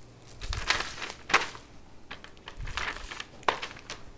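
Crinkling and rustling from gloved hands sprinkling ground black pepper over raw meat, in two bursts about two seconds apart.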